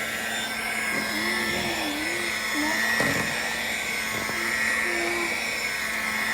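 Electric kitchen mixer running steadily, its motor giving a constant whine with a low hum underneath.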